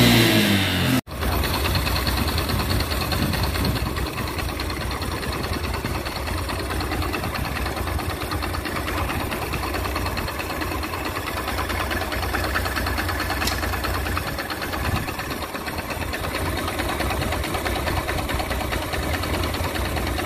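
Single-cylinder Honda motorcycle engine running at idle with its clutch cover off, the clutch basket spinning exposed, with a fast, even mechanical clatter. The basket is warped, which the mechanic blames for the clutch grabbing and jerking. In the first second a louder stretch with shifting engine pitch cuts off abruptly.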